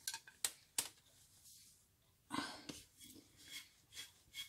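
Plastic spatula knocking and scraping against a heavy ceramic mixing bowl, scraping out cookie dough: three sharp knocks in the first second, then a run of short scrapes about every half second.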